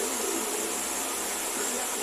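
Vent-New Oscilante 60 cm 200 W wall fan running, a steady rush of air.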